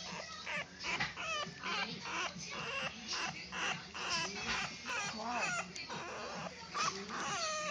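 A litter of young bulldog puppies whining and squealing: many short, high cries that rise and fall in pitch, overlapping one another.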